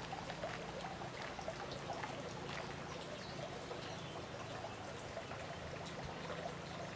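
Small garden waterfall spilling steadily into a pond, a constant splashing trickle.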